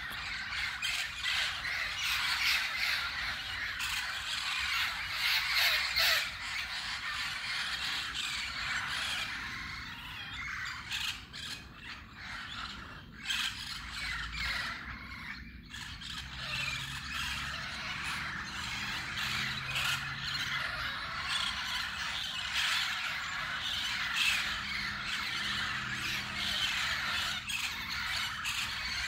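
A large flock of parakeets squawking and screeching together as they gather in a roost tree: a dense, unbroken clamour of many overlapping calls.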